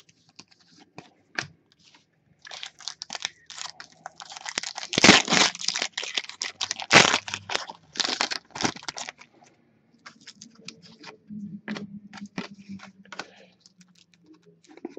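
Crinkly plastic wrapper of a trading-card pack crackling and tearing as it is opened by hand. There is a dense run of crackling from about two seconds in to about nine seconds, with the sharpest crackles in the middle, then lighter scattered rustling and taps.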